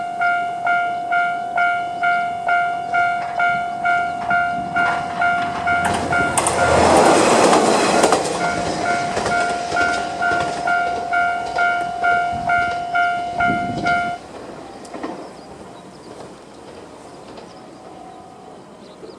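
Level crossing's electronic warning bell ringing at about two strikes a second, with a Kiha 2400 series diesel railcar rushing past for a couple of seconds about six seconds in. The bell stops abruptly about fourteen seconds in, signalling the crossing is clear.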